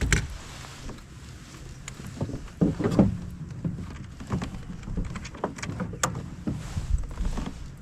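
Irregular knocks and clicks on a kayak, as gear is handled aboard, over a low rumble. The loudest knocks come about two and a half to three seconds in.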